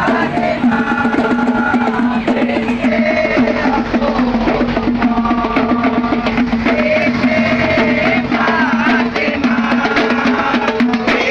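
Loud festive music: fast drum and hand-percussion strokes under a wavering, ornamented melody over a steady held drone note.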